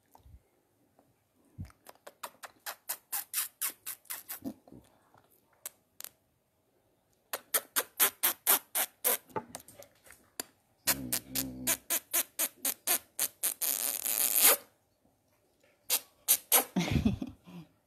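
A dog licking and lapping close to the microphone: several runs of quick wet smacks, about five or six a second, with a denser noisy stretch in the middle.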